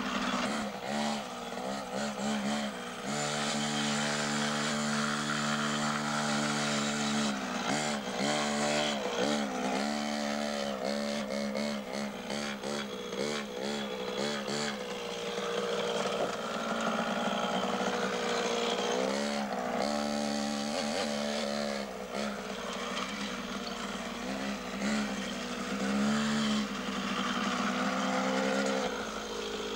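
Beta 50cc two-stroke minitrial motorcycle engine, revved up and down over and over as it is ridden, with a steadier stretch a few seconds in.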